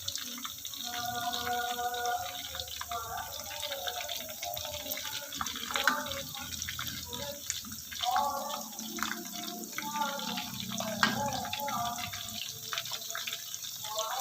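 Water running, with scattered clicks and clinks, and a voice in the background at times.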